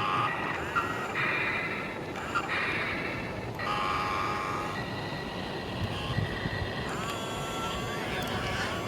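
Excavator at work: a high machine whine comes and goes in stretches of about a second as it moves, with rising whines near the end.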